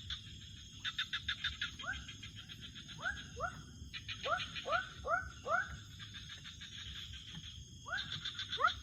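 Frogs calling at night: short, upward-sweeping calls repeated in bouts of two to four, over a fast, high pulsing trill that starts and stops.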